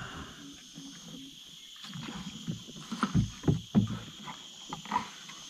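Swamp water sloshing and splashing in irregular swishes and knocks, busiest between about two and four seconds in, as someone wades or works through deep water, over a steady high drone of insects.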